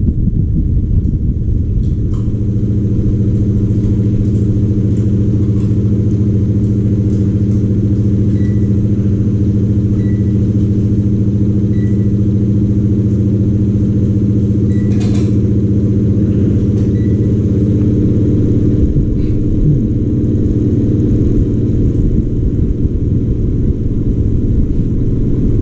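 A machine running with a steady, loud low drone, its pitch holding even throughout.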